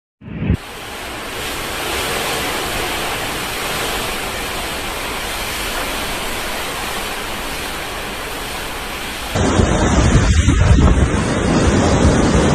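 Heavy typhoon rain pouring steadily with wind. After a cut about nine seconds in, it turns louder and gustier, with strong wind buffeting the microphone.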